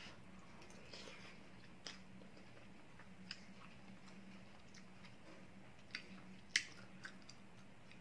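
A person chewing a mouthful of seafood noodle soup, with a few small clicks, the sharpest about six and a half seconds in. A faint steady low hum runs underneath.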